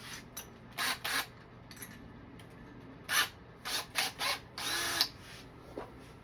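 Power drill with a step bit, run in several short bursts to cut a hole, the last burst a little longer.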